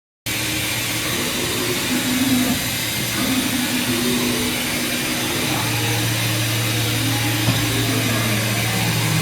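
DN Solutions SVM-4100 vertical machining center running: a steady machine whir and hiss with whining tones that rise and fall. The sound cuts in abruptly, a steady hum joins about halfway through, and there is a single click near the end.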